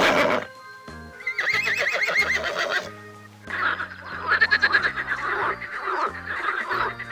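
A horse neighing: a loud wavering call right at the start, then a warbling whinny that lasts about a second and a half, over background music. From about three and a half seconds in comes a dense run of rapid pulsing calls, from a frog.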